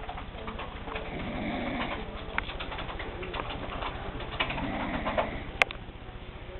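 Soft snoring with a cooing quality, one slow breath every three to four seconds. A sharp click sounds about five and a half seconds in.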